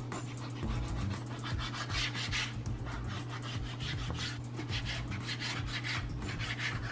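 Kitchen knife cutting raw chicken breast on a plastic cutting board: repeated scraping strokes as the blade draws through the meat and meets the board, with a steady low hum underneath.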